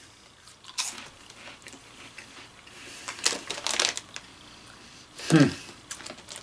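Crunchy ranch-flavored snack fries being bitten and chewed close to the mouth, in a few bursts of crunching. About five seconds in comes a short vocal sound falling in pitch, the loudest moment.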